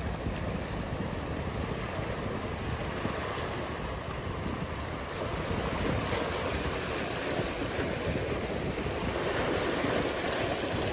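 Ocean surf washing steadily with wind buffeting the microphone, the wash building louder through the second half.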